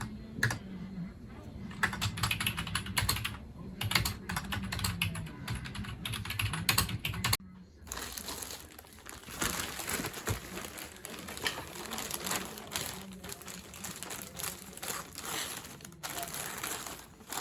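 Typing on a computer keyboard: a quick, irregular run of key clicks, with a short break about seven and a half seconds in.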